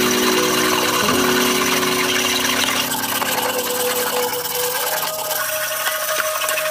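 A wooden block rubbing and rolling a woven silver foxtail chain back and forth along a grooved wooden board, a steady scraping hiss; rolling the chain this way rounds and evens out its weave. Steady sustained tones hum underneath, shifting to a single higher tone about halfway through.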